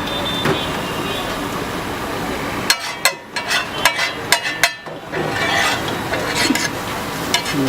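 Steady street-stall noise. Then, from about three seconds in, a run of sharp metallic clinks and taps from a steel spatula striking a flat tawa griddle.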